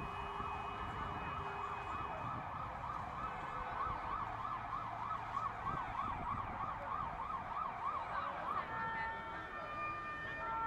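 Fire engine siren warbling quickly up and down. About eight and a half seconds in the warble stops and steady held tones take over.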